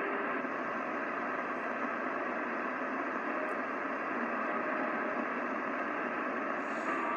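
CB radio receiver hiss on channel 28 with the squelch open and no station coming through: steady band-limited static from the radio's speaker while the S-meter rests near zero.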